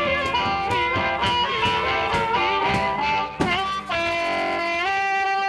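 Intro music on guitar: a run of plucked notes that settles into a sustained chord near the end.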